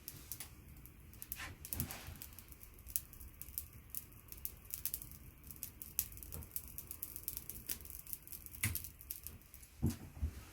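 Fan heater with its thermal fuses bypassed, ticking and crackling as it overheats: many sharp, irregular clicks, several a second.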